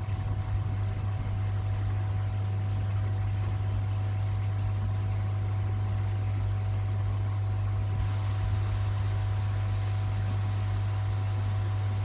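Steady low hum of running pond pumps, with a light hiss of moving water over it.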